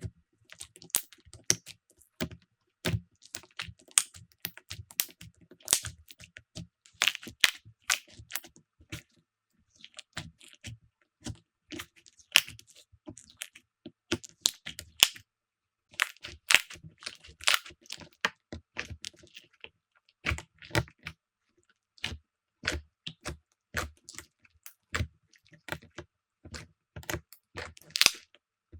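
Slime being squeezed and pressed by hand, giving dense, irregular crackling clicks and pops, with a couple of brief silent pauses between clips.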